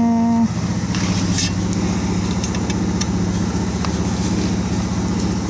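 Motorcycle engine idling steadily on a cold first start after winter storage, left to warm up.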